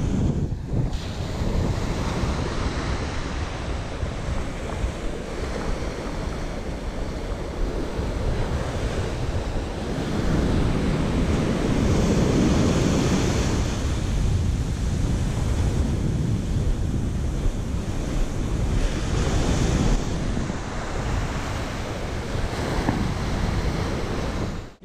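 Ocean surf breaking and washing up the sand, with strong wind buffeting the microphone. A bigger wave breaks about ten seconds in, and the noise swells louder for a few seconds.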